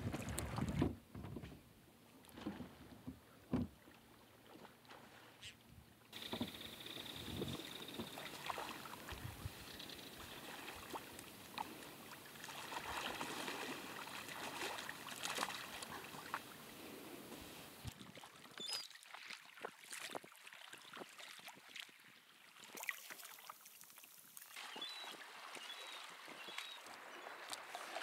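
Water lapping and splashing against a kayak's hull as it moves on open water, with a few sharp slaps in the first few seconds. The background changes abruptly several times.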